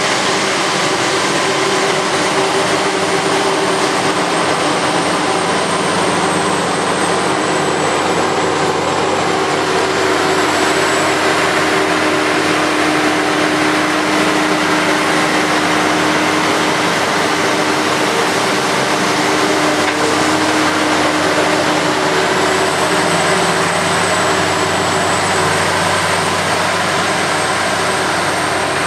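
Krone BiG X self-propelled forage harvester chopping whole-crop silage: a steady, heavy machine drone of the engine under load with the chopper and blower running. A thin high whine that wavers slightly runs through it.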